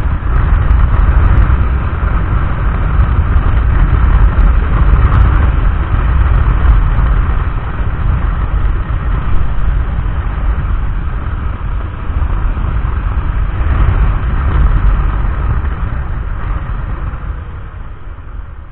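Loud, steady rumble of riding noise on a motorcycle-mounted camera: wind on the microphone mixed with engine and road noise. It dies down near the end.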